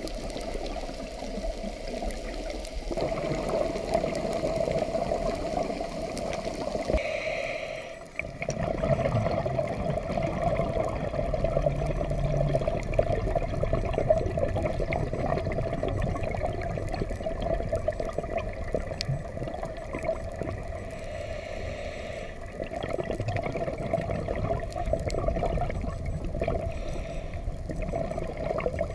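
Underwater sound from a scuba diver's camera: a steady watery rush with gurgling exhaled regulator bubbles now and then. It breaks off briefly about eight seconds in.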